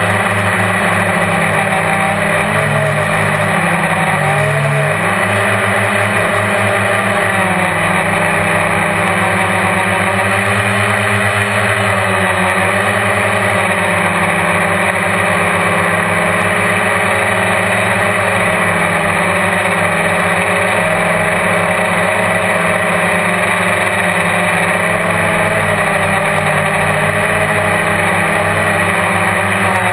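GAUI QuadX quadcopter's electric motors and propellers whining steadily, heard up close from a camera on the frame. The pitch wavers slightly as the motor speeds change.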